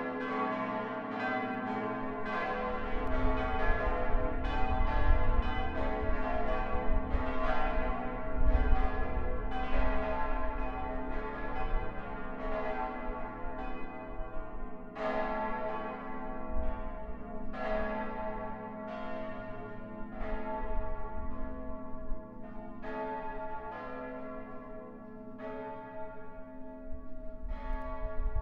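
Several church bells ringing together in a peal, their strikes overlapping in an uneven pattern of roughly one to two a second, each note ringing on, with a low hum underneath.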